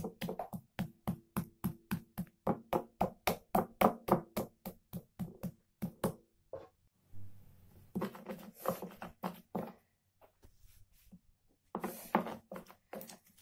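Stone pestle pounding shallots, garlic and candlenuts in a stone mortar, quick regular knocks about four a second for the first six seconds. Later come rougher, irregular grinding strokes as the spices turn to paste.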